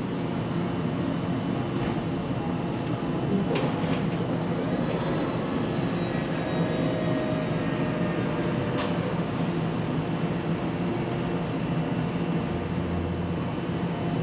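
Tram running along its rails: a steady rolling rumble and hum, a few sharp clicks, and a faint whine that slides in pitch about halfway through.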